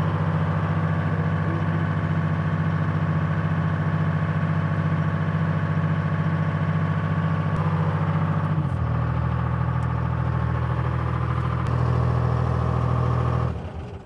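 1978 Dynahoe 160 backhoe's engine running steadily; about nine seconds in its note steps down to a lower speed, and it shuts off near the end.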